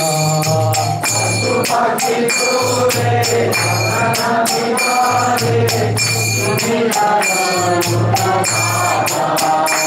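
Kirtan music: small metal hand cymbals struck in a quick, steady rhythm over a melodic line and a low drone.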